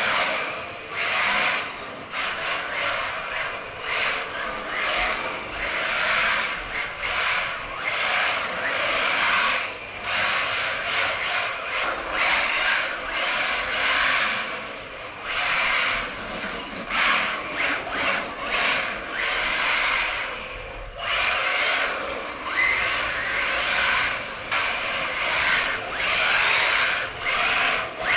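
Brushless MJX Hyper Go H14MK 1/14-scale RC car drifting on a concrete floor: its motor whine surges and eases over and over with the throttle while the drift tires scrub and hiss as it slides through the turns.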